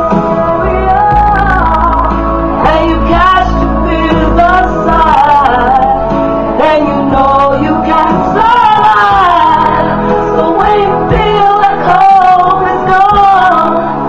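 A woman singing in a sustained, gliding melody over backing music with a steady low bass line.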